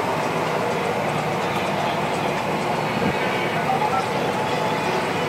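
Massey Ferguson 7626 tractor running steadily under load, heard from inside its cab, as it pulls a disc harrow through a hayfield.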